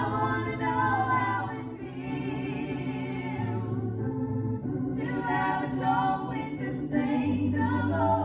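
Gospel song: voices singing held notes with vibrato over a steady organ accompaniment.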